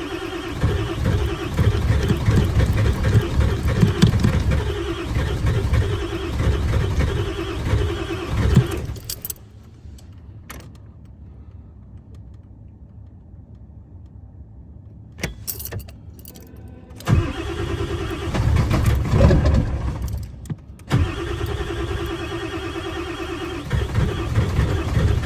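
Ford 7.3-litre V8 diesel engine running rough and uneven, then stopping about nine seconds in. After a quieter spell with a few clicks, it is cranked and starts again, in keeping with a hard-starting engine.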